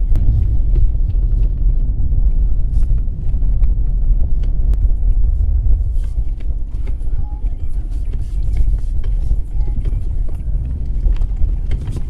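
Off-road vehicle driving slowly over a rough dirt forest trail, heard from a hood-mounted camera: a steady low rumble with frequent small clicks and knocks from the bumpy ground.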